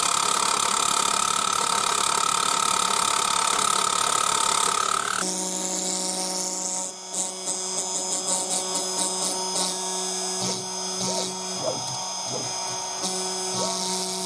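Electric jigsaw fitted with an aluminium-cutting blade, sawing through aluminium plate with a steady buzzing rasp for about five seconds, then stopping abruptly. After that comes a quieter steady machine hum with a few light knocks.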